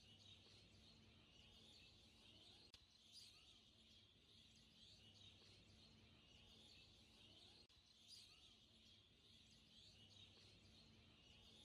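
Near silence, with faint bird chirps in the background and a low steady hum.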